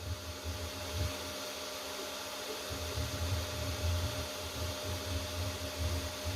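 Kingroon KP3S 3D printer running: its fans hum steadily over a hiss, with a low motor drone that swells and dips as the stepper motors move.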